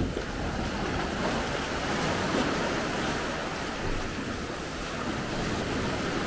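Steady rushing of sea surf and wind, an even noise with no distinct events.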